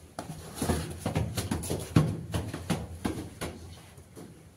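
Footsteps of several people climbing concrete stairs, about three steps a second.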